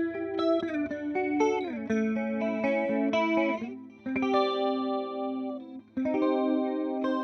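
Electric guitar played clean through a Boss CE-2 chorus pedal: a run of single notes with pitch slides, then chords struck about four and six seconds in and left to ring.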